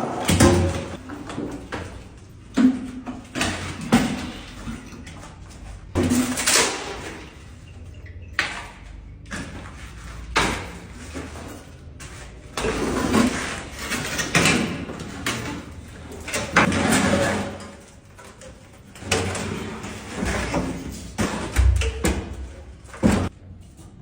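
A door being banged or slammed over and over, heavy irregular bangs every second or two, each ringing out briefly.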